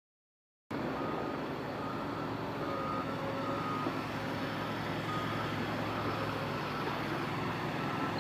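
Truck's reversing alarm beeping about once a second over its running engine, starting about a second in after silence.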